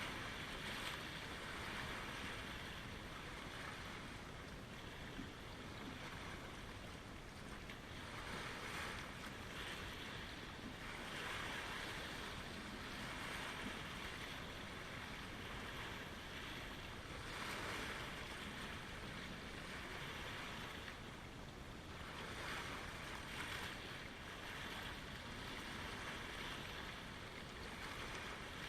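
Small lake waves lapping at the shoreline, soft washes swelling and fading every few seconds over a steady low rumble of wind and water.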